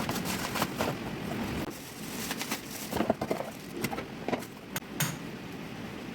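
Irregular clicks and knocks of objects being handled, stopping about five seconds in and leaving a steady faint hiss.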